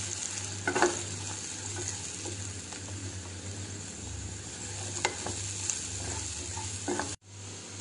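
Sliced capsicum and onion sizzling in hot oil in a nonstick pan as a spatula stirs them, with a few light taps and scrapes of the spatula against the pan. The sound drops out briefly near the end.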